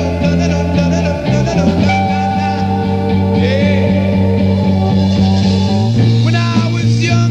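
Psychedelic rock band playing an instrumental passage: a steady bass line and drums under a lead line of bent, wavering notes.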